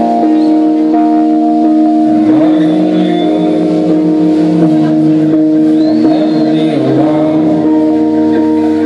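Live keyboard music: steady held chords, with a man singing over them from about two seconds in.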